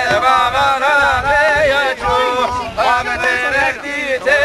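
Men's voices singing a folk song for a line dance, a continuous wavering melody.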